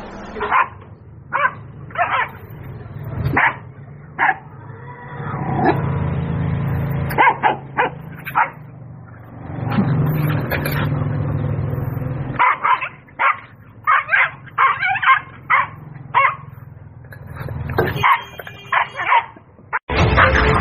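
Short, high yipping animal calls, some single and some in quick runs, with a low steady hum beneath parts of them.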